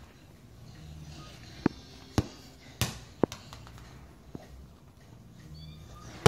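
Small rubber ball bouncing and knocking on a hard tile floor: a handful of sharp, separate knocks, the loudest near the end.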